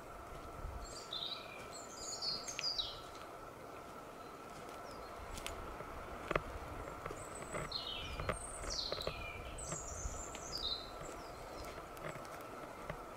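A songbird singing two short runs of quick, falling chirps, about a second in and again from about seven seconds in. Under it, footsteps on the forest floor with a few sharp clicks and a faint steady tone.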